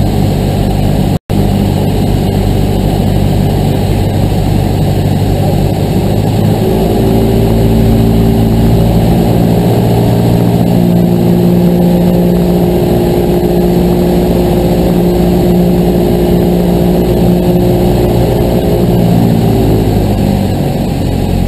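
Cessna 172's piston engine and propeller running at low power over heavy wind rush, then growing louder with a stronger, steadier tone about seven seconds in, holding, and easing off again near the end. A brief audio dropout about a second in.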